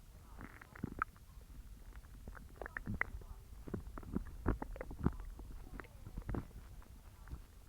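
Human stomach growling during digestion: a low rumble with many irregular short gurgles and pops scattered through it.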